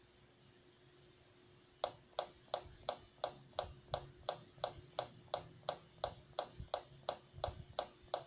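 Steady mechanical ticking, about three sharp, identical ticks a second, starting about two seconds in, over a faint steady hum.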